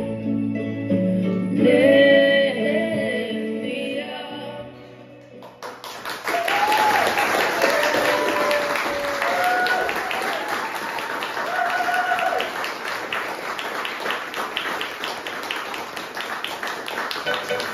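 A pre-recorded song with singing plays and ends about five seconds in. A burst of applause follows, with a few voices calling out over the clapping.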